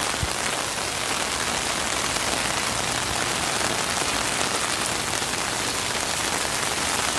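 Steady rain falling, an even hiss, with rain spattering on an umbrella held overhead; one faint tick about a quarter second in.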